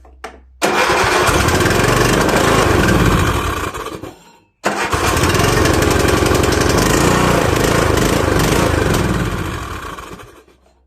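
The Briggs & Stratton 17.5 hp engine of a riding mower fires up abruptly and runs for about three seconds, dies away, then starts again, runs for about five seconds, and winds down to a stop. It is running again after a valve adjustment cured its refusal to crank over.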